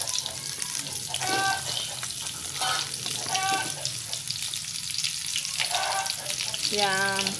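Sliced white radish and other root vegetables frying in hot oil with browned garlic in a pan, a steady crackling sizzle.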